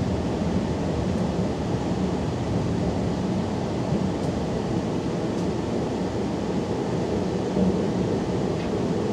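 Steady running rumble of a Talent 2 electric multiple unit at speed, wheels on rails, heard inside the passenger compartment.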